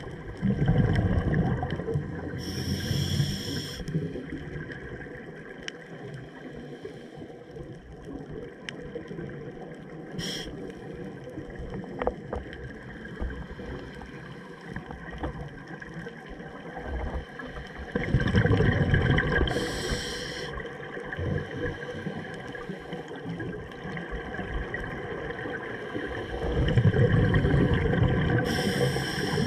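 Scuba diver breathing through a regulator underwater: three long, rumbling bursts of exhaled bubbles about ten seconds apart, each with a short sharp hiss from the regulator.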